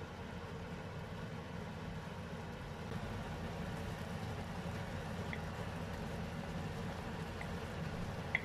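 A steady low hum from the kitchen while a chilli-tomato sauce cooks in a wok. A few light clicks come later on, the sharpest just before the end.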